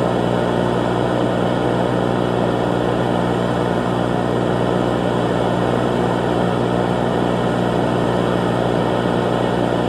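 Steady, unchanging low electronic drone with a buzzy hum, which cuts off suddenly at the end.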